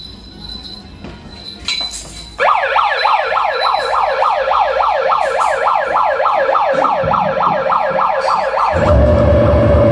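Noise-music electronics played loud through a club PA: after a couple of seconds of low room noise, a siren-like tone cuts in abruptly, its pitch falling over and over, about four sweeps a second. Near the end a heavy low rumble with a steady hum takes over.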